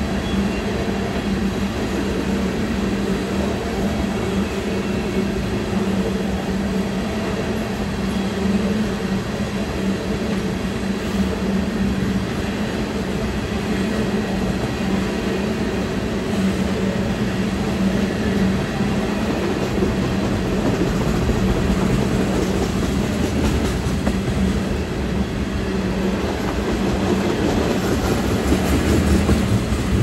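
Empty ethanol tank cars of a freight train rolling steadily past, the continuous noise of steel wheels on rail, a little louder near the end.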